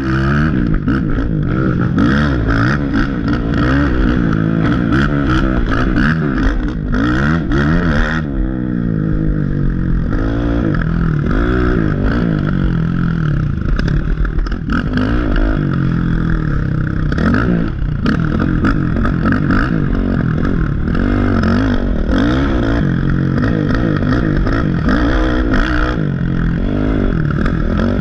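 Race ATV engine revving hard, its pitch rising and falling over and over with throttle and gear changes as the quad is ridden over a rough dirt trail. Clattering knocks from the machine over the bumps are densest in the first several seconds.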